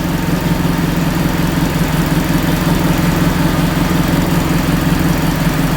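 Acura RSX engine idling steadily, with a new power steering pump just fitted.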